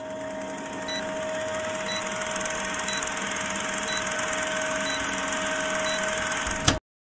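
Old film projector sound effect for a countdown leader: fast mechanical clatter over a steady hum, with a short blip about once a second, cutting off suddenly with a click near the end.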